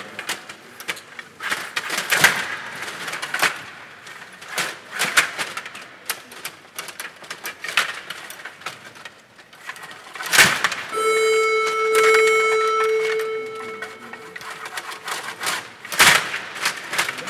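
Table hockey play on a Stiga table: a fast run of clicks and clatter from the rods, plastic players and puck, with a sharp loud hit about ten seconds in. Right after it a steady electronic beep sounds for about three seconds and fades, and another sharp hit comes near the end.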